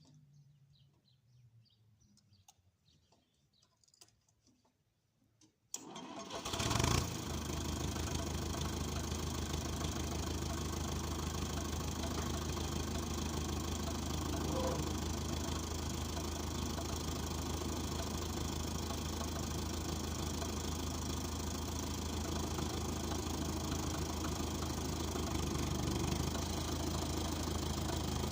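Fordson Diesel Major tractor's four-cylinder diesel engine cranking and catching about six seconds in after a quiet start, then running steadily at idle.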